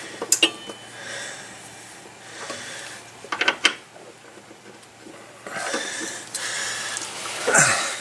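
Hand tools clinking on metal: a socket wrench being fitted and worked on a mower's belt tensioner bolt, with a few sharp metallic clicks early, a quick run of clicks about three and a half seconds in, and a longer rasping stretch near the end.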